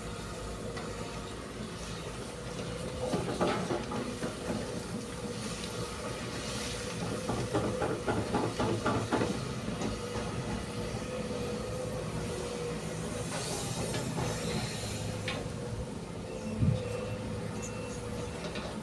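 Heavy diesel machinery running steadily, with bouts of rapid metallic clatter a few seconds in and again around the middle, and a single knock near the end.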